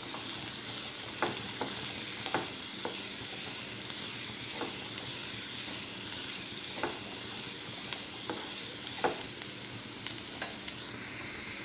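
Diced vegetables sizzling in hot oil in a nonstick wok while a spatula stirs them, with a steady hiss and scattered light clicks of the spatula against the pan.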